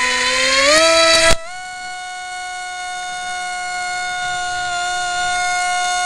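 Electric motor and propeller of a Dynam Snow Bird RC plane, heard through its onboard camera: a high whine rising in pitch as the throttle comes up at launch, under a loud rush of noise that cuts off about a second and a half in. After that the whine holds steady as the plane flies.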